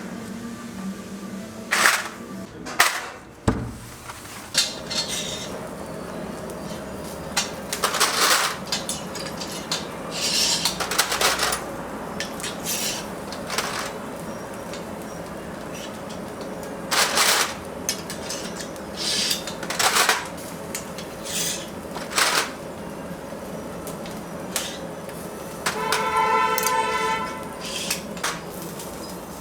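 Kitchen clatter: irregular clinks and knocks of utensils and dishes being handled over a steady background hum, with a short squeal near the end.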